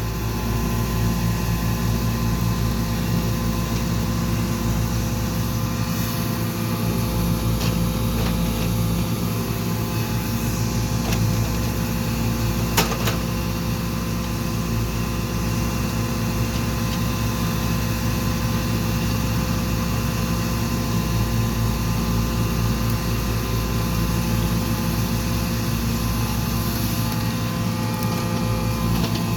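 Excavator's diesel engine running at a steady speed, with one sharp click about 13 seconds in.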